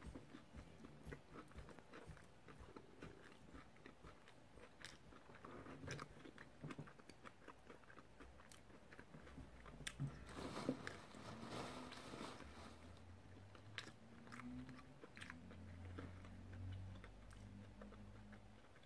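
Faint close-up chewing and biting of a chicken wing: soft mouth clicks and small crunches, busiest about ten to twelve seconds in.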